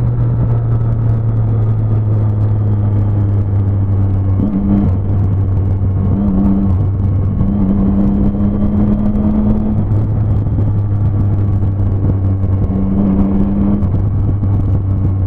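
Motorcycle engine running at a steady cruising pitch under way, over road and wind noise, its note shifting slightly a few times as the throttle changes.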